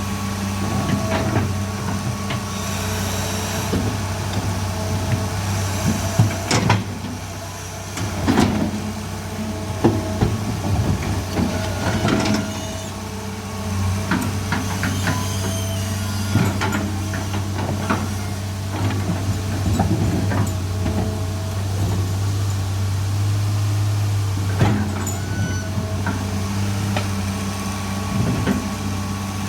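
Excavator diesel engine running steadily, with scattered sharp knocks and clanks over it from work on the steel track chain.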